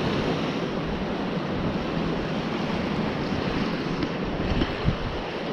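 Steady wash of surf and wind buffeting the microphone.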